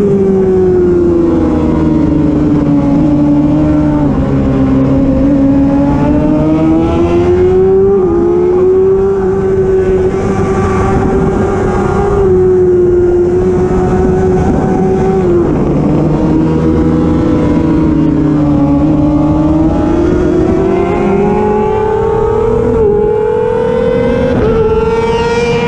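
Racing sport bike's engine running hard on track. Its pitch climbs and falls as it accelerates and slows, with several sudden steps in pitch at the gear changes.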